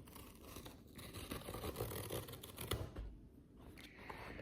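Faint scratching and tearing as a blind box's packaging is handled and opened, with a short lull about three seconds in.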